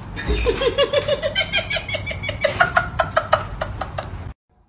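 A person laughing in a fast, even run of short "ha" sounds, about seven a second, rising in pitch and cutting off abruptly near the end.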